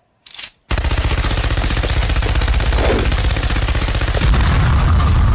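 Machine gun firing one long continuous burst of rapid shots, starting about a second in.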